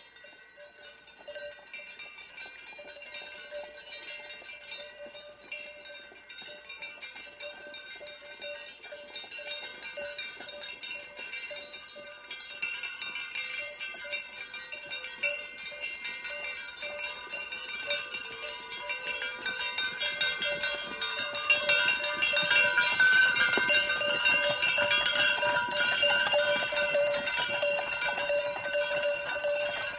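Cowbell clanking and ringing in an irregular rhythm, as if worn by a moving animal. It grows steadily louder and is loudest in the last third.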